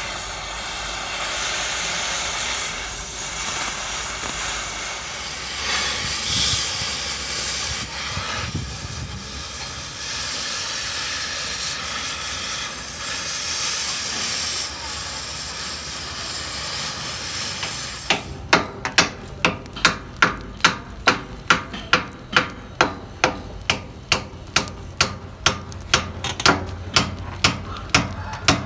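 Gas cutting torch hissing steadily as it cuts into the weld on an excavator boom pin's end. Over the last ten seconds or so the hiss gives way to evenly spaced hammer blows on the metal pin, about two a second.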